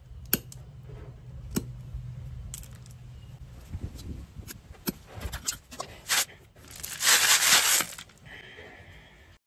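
Large knife chopping the tail ends off small snails on a wooden stump block: scattered sharp clicks as the blade cracks the shells and hits the wood. About seven seconds in comes a loud rattling burst lasting about a second, as the cut snails are shaken in a plastic colander.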